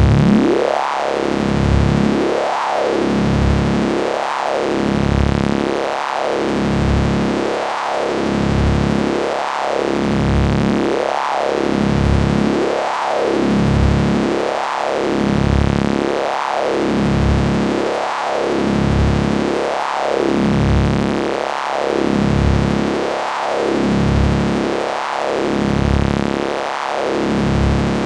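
Science-fiction electricity sound effect: a synthesized electric buzz built on a steady low hum. Its brightness sweeps up and down in a regular, repeating pulse.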